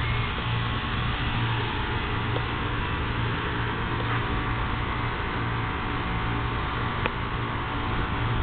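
Steady low hum over a constant hiss, with one short sharp click about seven seconds in.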